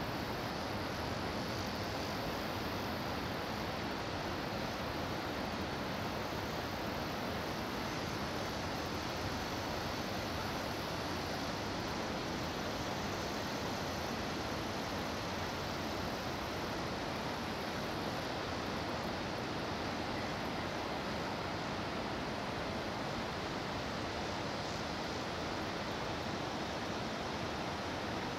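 Steady, even rushing of river water, with no change in level.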